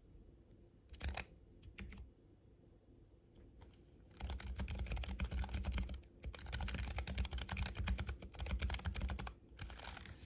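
Typing on a Keychron K7 low-profile keyboard with Banana switches: a few single key clicks, then fast runs of keystrokes from about four seconds in, with two short pauses.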